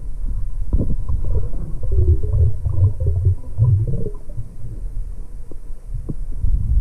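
Underwater sound of a diver's exhaled air bubbles: a low rumble with a run of bubbling gurgles from about one to four seconds in.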